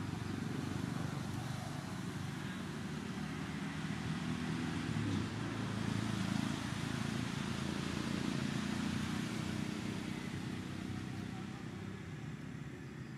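Steady low background rumble, even and unbroken.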